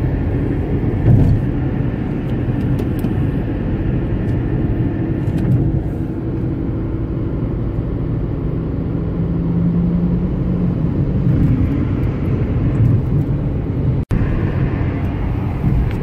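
Steady road and engine noise inside a Nissan car's cabin moving at highway speed, a low rumble with a faint hum. It cuts out for an instant about fourteen seconds in.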